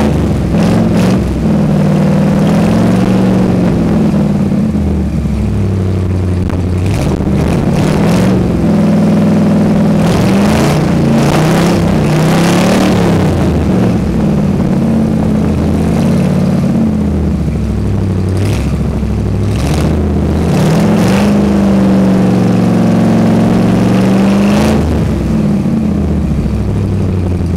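Chevrolet 350 small-block V8 running in a 1979 Chevrolet Blazer, heard at the tailpipe. The engine is revved up and let back down again and again, so the exhaust note rises and falls throughout.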